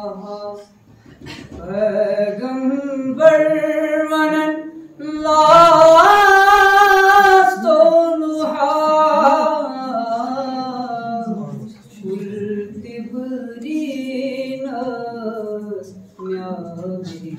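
A man singing a naat, an Islamic devotional hymn, unaccompanied, in long drawn-out phrases with held, wavering notes and short breaths between them. The highest and loudest phrase comes about a third of the way in.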